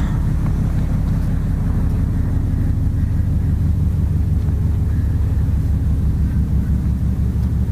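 Steady low machinery hum aboard a container ship under way: a continuous deep rumble with several steady low tones.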